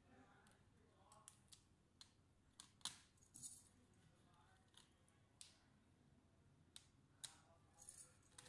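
Faint, irregular clicks and small metallic clinks of a screwdriver working on the screws inside an opened Dell Inspiron 3501 laptop, with a sharper click about three seconds in and again about seven seconds in.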